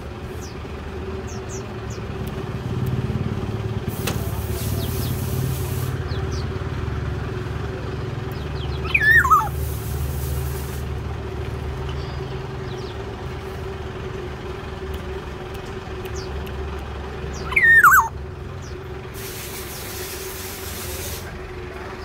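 Black-naped oriole giving a short call that falls steeply in pitch, twice, about nine seconds apart, over a steady low rumble.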